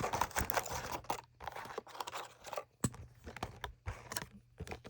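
Rustling and scraping of small plastic packaging, then a run of sharp, irregular plastic clicks as a Cherry MX Red plate-mount linear keyboard switch is handled and pressed.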